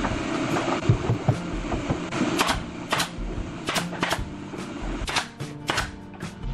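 Pneumatic nail gun firing into wooden formwork boards: about seven sharp shots at uneven intervals in the second half. In the first two seconds there are a few duller knocks of wood being handled, over background music.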